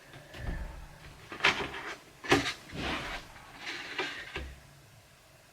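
Handling clatter of a bird cage and its carrier: a run of about six knocks, rattles and rustles over four seconds, with a short pause between each.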